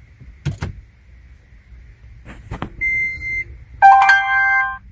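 Electronic beeps and chimes as a 2012 Toyota Prius Plug-in is switched on with the push-start button: a click, then a single steady beep, then a louder chime of several tones held for under a second.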